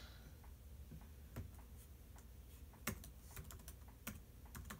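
Faint, scattered key clicks of typing on a keyboard, with a sharper tap about three seconds in.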